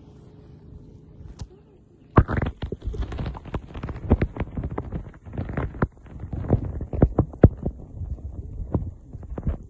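Microphone held underwater: a low steady hum, then from about two seconds in, irregular muffled knocks and thumps several times a second as water moves against the submerged phone.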